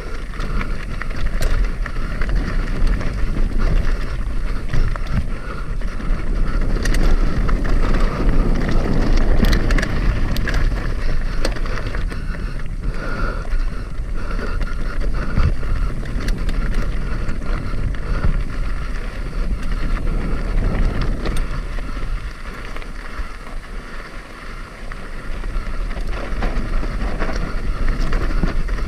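Upland hardtail mountain bike descending a rocky trail: wind buffeting the microphone, tyres crunching over rock and gravel, and the bike rattling and knocking over the bumps. It eases off for a few seconds about three-quarters of the way in, then picks up again.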